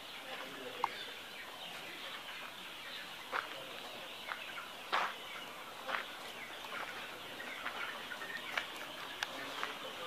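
Many chickens in a poultry house calling together, a continuous dense chatter with a few louder, sharp single calls standing out.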